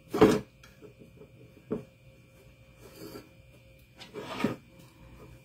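Handling noise of jute twine being knotted and pulled across a metal baking pan on a cutting mat. There is a sharp knock just after the start, a lighter one near two seconds, and rubbing about four seconds in as the twine is drawn across.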